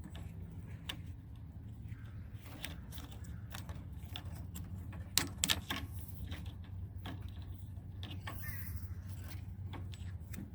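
Scattered clicks and light metallic rattles of the mower's blade engagement cable and its fittings being handled and worked free, the loudest cluster about five seconds in, over a steady low hum.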